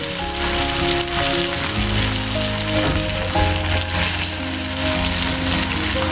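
Masala-coated fish pieces sizzling as they deep-fry in hot oil, a steady crackling hiss, under background music.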